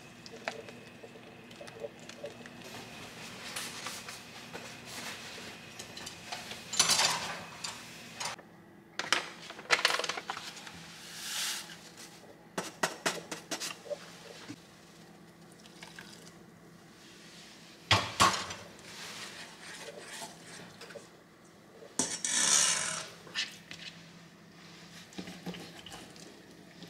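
Kitchen work: chopsticks stirring vegetables in a simmering pot, then scattered clinks and knocks of utensils and containers against a stainless steel mixing bowl, with a short rush of noise about three quarters of the way through.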